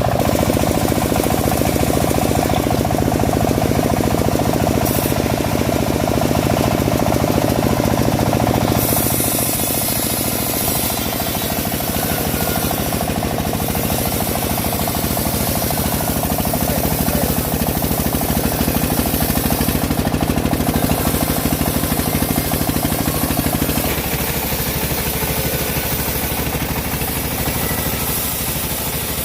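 The engine of a homemade bandsaw mill running steadily, its note shifting about nine seconds in and again near the end.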